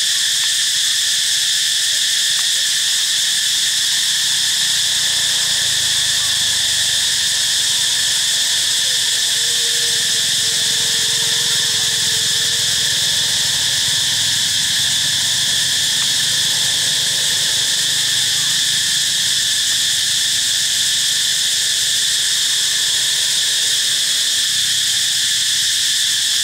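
Dense, unbroken chorus of insects, high-pitched and steady, with several constant pitches layered together.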